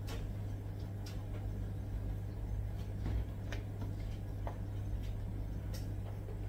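Hands rubbing seasoning into raw salmon pieces in a plastic tub: scattered soft clicks and taps of the fish and the tub being handled, over a steady low hum.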